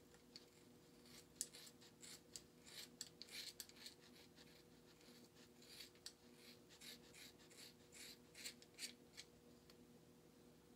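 Scissors cutting through a thick dreadlock close to the scalp: a long run of faint, irregular snips that stops about nine seconds in. A faint steady hum runs underneath.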